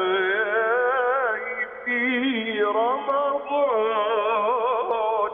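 Male munshid singing an Islamic ibtihal over a telephone line, drawing out long, wavering melismatic notes without distinct words, with a few short breaths between phrases. The sound is thin, with the top end cut off.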